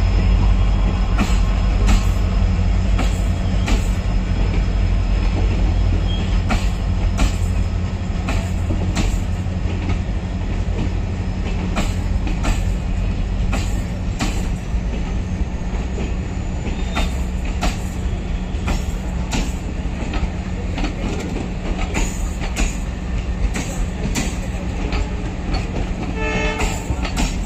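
Indian Railways passenger coaches rolling past on the track: a steady low rumble with irregular clicks and clacks of the wheels over the rail joints, the rumble easing a little after the first several seconds.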